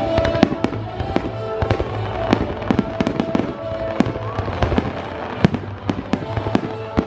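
Fireworks going off in a rapid, irregular string of sharp bangs and cracks, over steady background music.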